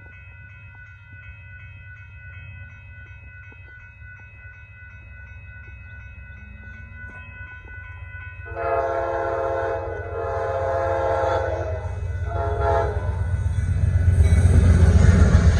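Amtrak Texas Eagle's diesel locomotive approaching a grade crossing, its low rumble building. About halfway in, the horn sounds the crossing pattern, two long blasts and then a short one. Near the end the train draws close and its rumble becomes loud.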